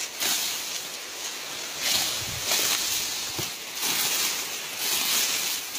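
Dry sugarcane trash leaves rustling and scraping as a homemade sheet-metal stripping tool is pushed along the standing canes, in repeated irregular strokes about one or two a second.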